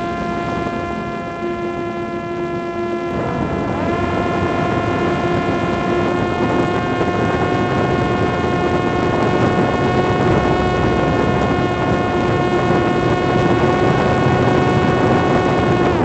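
Parrot Disco's electric motor and propeller whining in flight, rising in pitch right at the start and again about three to four seconds in as the throttle goes up, then holding one steady high whine for the high-speed run. A rush of wind noise runs beneath it.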